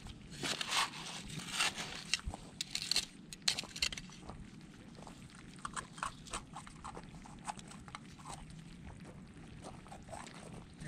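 Small hand trowel digging into shell-strewn beach gravel and sand, crunching and scraping in quick strokes. After a few seconds it gives way to quieter, scattered scrabbling as hands dig through the gravel.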